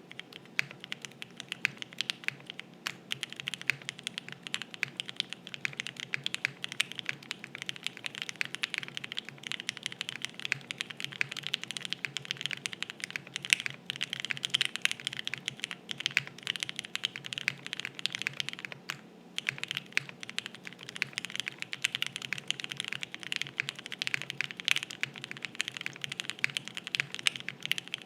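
Continuous fast typing on a Think6.5 v2 mechanical keyboard: a gasket-mounted board with a POM plate, lubed JWK Giant v3 62 g linear switches and GMK keycaps. The keystrokes come thick and steady, with a brief pause about nineteen seconds in.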